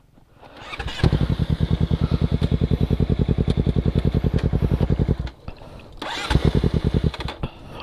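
Sport motorcycle engine being cranked on its electric starter in two tries: a fast, even chugging for about four seconds, a short pause, then a second, shorter try.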